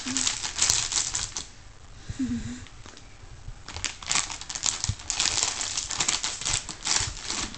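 Soft plastic baby-wipes pack crinkling as it is handled, in rapid irregular crackles. The crackling runs for a second and a half, pauses, then picks up again for the last four seconds.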